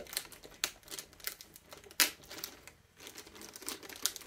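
Clear plastic bag crinkling and crackling in irregular snaps as fingers pick sellotape off it, with one sharp crackle about two seconds in.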